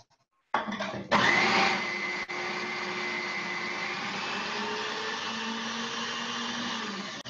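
An old centrifugal juicer's motor starting up and running steadily as celery pieces are pushed down into it and shredded; its whine rises briefly as it comes up to speed, then it stops just before the end.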